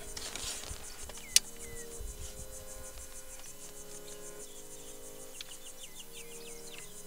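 Insects, likely crickets, chirping in a steady, high, rapidly pulsing drone. A single sharp click comes about a second and a half in, and a few short bird chirps come near the end.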